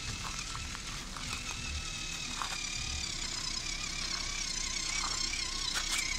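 WPL RC truck's small electric motor and gearbox whining steadily with a slight waver as it crawls through a shallow puddle, with a few short clicks mixed in.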